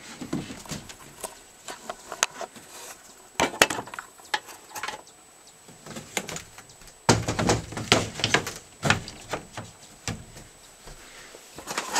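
Attic window being opened and a wood-framed insect screen fitted into it: scattered knocks, clicks and rattles of wood and metal hardware, with a short group a few seconds in and a busier run of knocking and rattling a little past the middle.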